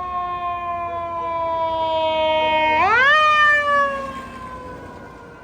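Fire apparatus siren with a mechanical wail, coasting slowly down in pitch. About three seconds in it is revved quickly back up to a higher, louder wail, then winds down again and fades.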